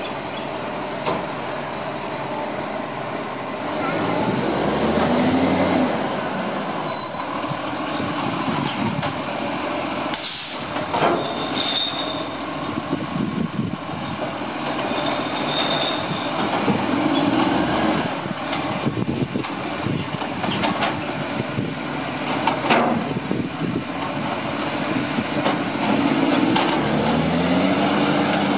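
Iveco side-loader garbage truck working its hydraulic lifting arm: the engine revs up three times as the arm lifts and tips wheelie bins, with a high whine that climbs with each rev, clanks from the bins and arm, and a short hiss of air about ten seconds in.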